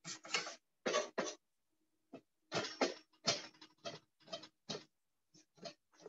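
Kitchen knife chopping a jalapeño on a plastic cutting board: a run of short, irregular knocks, a few a second, with pauses between runs.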